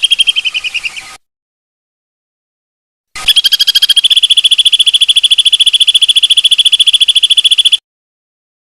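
A fast, even trill of rapid pulses at one high steady pitch, the long rolling trill used in songbird training recordings. It runs about a second, stops dead, comes back about three seconds in and cuts off abruptly near the end, as spliced segments.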